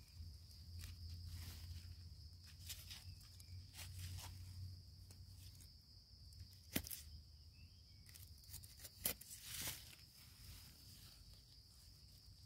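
Faint handling sounds as bitter bolete mushrooms are plucked by hand from dry leaf litter: soft rustling, with a few sharp clicks about two-thirds of the way through. A steady high-pitched hiss runs underneath.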